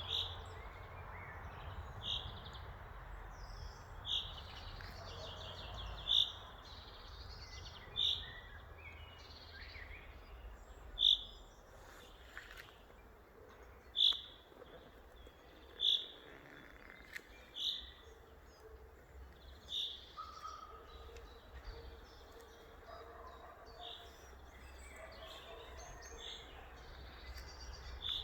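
Forest birds singing. One bird repeats a short, high call about every two seconds, while other birds chirp more softly in between, over a steady low background noise.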